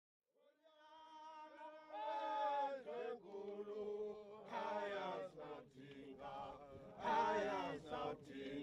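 Unaccompanied group chant: a single voice begins, and several voices join in about two seconds in, singing in short phrases.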